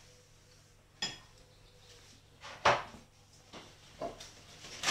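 A few scattered clinks and knocks of a metal spoon against a glass mixing bowl and the steel tabletop, the loudest about two and a half seconds in. Paper rustling starts right at the end as the flour bag is opened.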